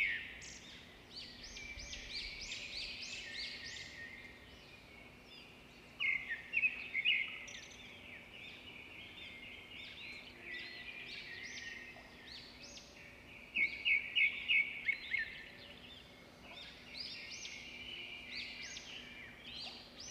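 Many small birds chirping and twittering together, overlapping quick high chirps, with two louder runs of rapid chirps about six and about fourteen seconds in.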